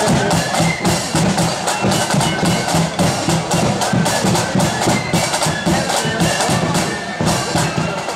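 Loyalist 'blood and thunder' flute band playing a march on the move: shrill flutes carry the tune over rattling snare drums and a bass drum keeping a steady marching beat.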